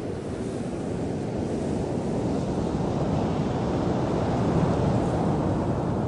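Surf breaking on a pebble beach: a steady rushing of waves that swells to its loudest about four and a half seconds in.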